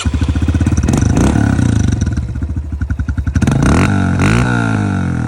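Honda CRF125F dirt bike's small single-cylinder four-stroke engine running, loud and steady, then revved up and down a few times in quick succession from about four seconds in.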